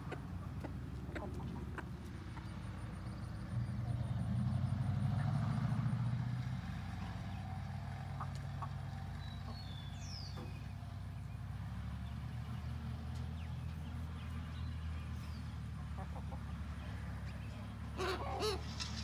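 A steady low motor hum, swelling for a couple of seconds about four seconds in. Chickens cluck briefly near the end.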